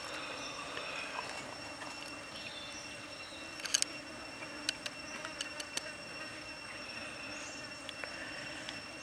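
Insects droning steadily with a high, even tone, with a few sharp clicks a little under four seconds in.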